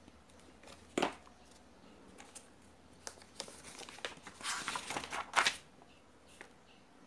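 Hands handling small objects close to the microphone: a sharp click about a second in, then a run of rustling, scraping and clicking, loudest just before the end of it.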